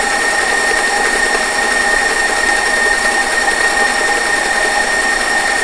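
Stand mixer running steadily with a high motor whine, its beater creaming butter, sugar and egg yolks in a steel bowl.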